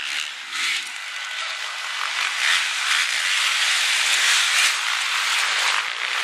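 Supermoto motorcycle engines out on the track, heard as a rushing, hissing noise that swells and fades several times as the bikes ride and jump.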